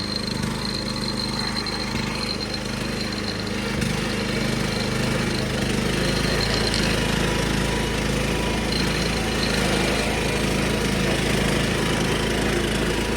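1976 John Deere 300 riding lawnmower's engine running steadily as the mower is driven, a little louder from about four seconds in.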